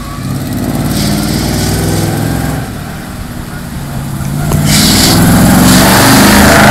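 Monster school bus's engine revving up under hard acceleration, in two surges: one rising about half a second in, easing off around the middle, then a second, louder one climbing from about four and a half seconds and loudest near the end, with a rushing noise over it.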